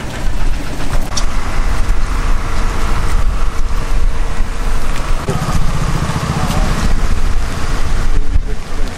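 Wind rumbling and buffeting on the microphone outdoors, with indistinct voices of a small group underneath.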